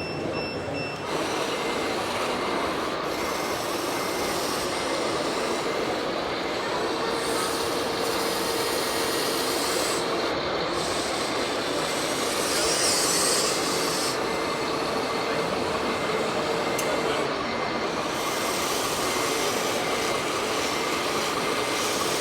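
Radio-controlled model trucks running, a steady mechanical din with faint motor whines that rise in and fade out a few times.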